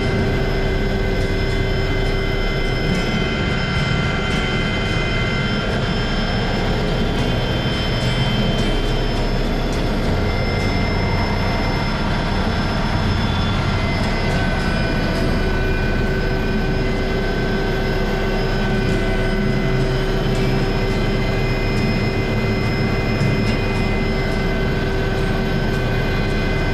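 Helicopter in flight, heard from inside the cabin with the door open: continuous engine and rotor noise with several steady whining tones over a deep rumble.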